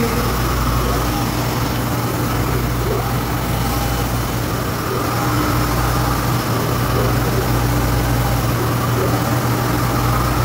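Epson SureColor V7000 UV flatbed printer running while it prints, a steady mechanical hum.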